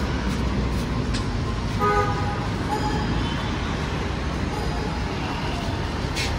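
Street traffic rumbling steadily, with a short car horn toot about two seconds in and a fainter toot just after.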